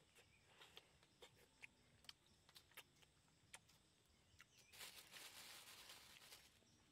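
Faint, scattered small clicks and smacks of a person eating rambutan by hand, with a rustling noise for under two seconds about five seconds in.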